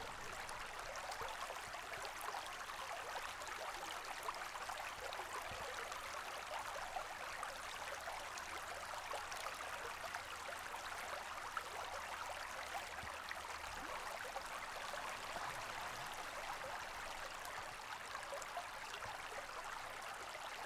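Faint, steady rush of running water.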